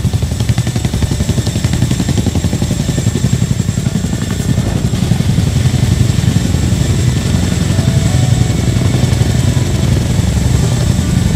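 CH-47 Chinook tandem-rotor helicopter lifting off and hovering low: fast, even rotor chop with a steady high turbine whine over it.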